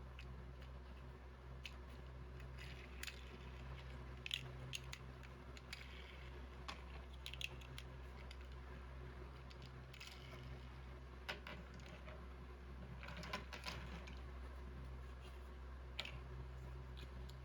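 Small plastic toy building bricks being handled: scattered light clicks and soft rustling, irregular and a few sharper, over a steady low hum.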